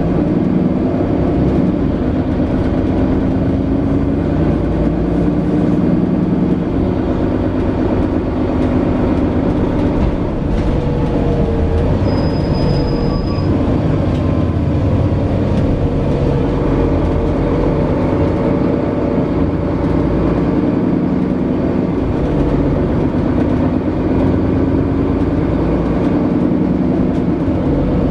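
Setra S415NF city bus heard from inside the passenger cabin while driving: a steady engine and road rumble whose pitch drifts up and down. A brief thin high tone sounds about twelve seconds in.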